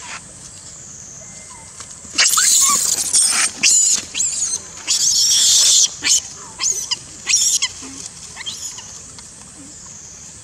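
A young long-tailed macaque screaming: a run of shrill, harsh screams starting about two seconds in and going on for some five seconds, one of them about a second long.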